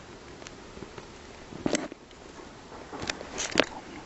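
A few sharp, brief clicks and snaps over a low steady background: one about two seconds in, then a quick cluster near the end, the last of them the loudest.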